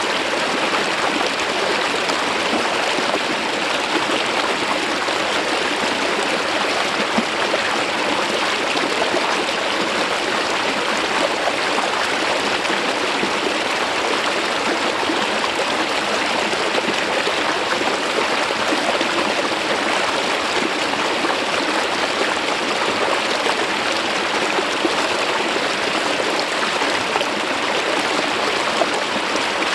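Mountain stream water flowing smoothly down over a rock surface, a steady, even rush.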